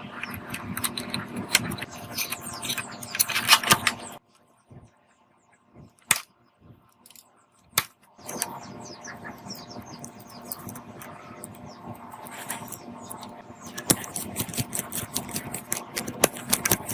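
Small metal parts clinking and rattling as they are handled, over a steady hum. The sound drops to near silence for about four seconds with a few single clicks, then resumes.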